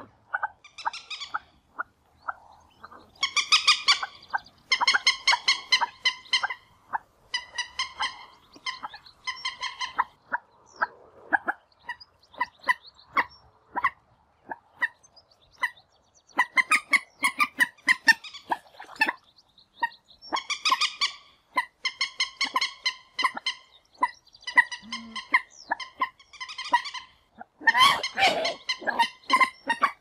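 Common moorhen fighting call: short clucking notes repeated in rapid series, in bouts separated by brief gaps, with scattered single notes between them.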